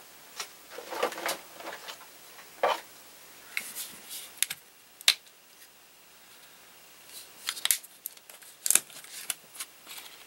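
Scattered small clicks and light scratchy taps of art supplies being handled while painting: a paintbrush working on card and paint pots being moved. The sharpest click comes about five seconds in, with bunches of taps around one second and near the end.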